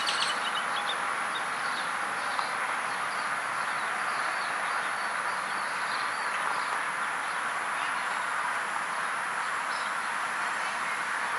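Steady outdoor background hiss with no clear pitch, with faint bird chirps now and then.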